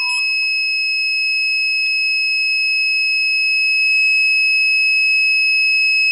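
Handheld infrared methane detector's alarm sounding a continuous high-pitched electronic tone while its methane reading climbs: the detector is signalling methane gas at its sensor.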